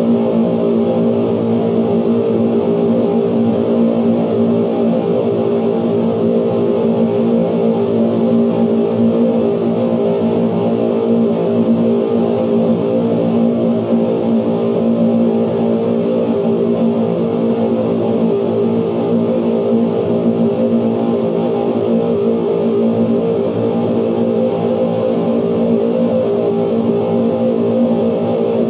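Loud, steady noise-music drone from 16mm film magnetic soundtracks, played back and altered by light sensors on the projection screen: a thick buzzing mass of many held tones, with no pauses.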